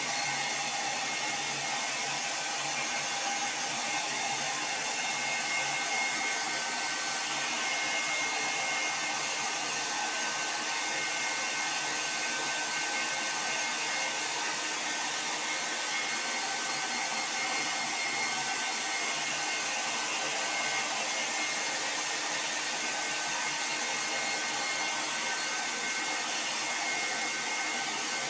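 Handheld hair dryer running steadily as it dries a French bulldog's coat: an even rush of air with a faint high whine.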